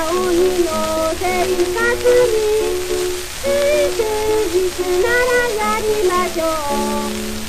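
A child singing a Japanese school song (shōka) with accompaniment, played from an early 78 rpm shellac disc, with steady surface hiss and crackle under the music.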